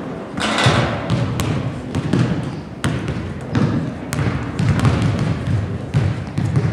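Basketball bouncing repeatedly on a hardwood gym floor as it is dribbled before a free throw.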